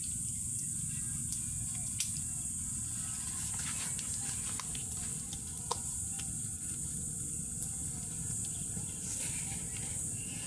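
Open wood fire crackling, with scattered sharp pops (the clearest about two seconds and nearly six seconds in), over a steady low rumble and a constant high hiss.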